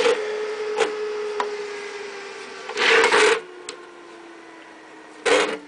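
The power supply's small cooling fan whirs with a steady tone that slowly falls in pitch and fades as the fan slows down. Light clicks and two short, loud scraping rubs come from the metal case being handled and turned on the table, about 3 seconds in and near the end.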